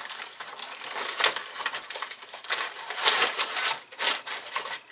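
Crinkling and rustling of craft-kit packaging being handled: a dense run of small crackles and clicks, louder about a second in and again around three seconds in.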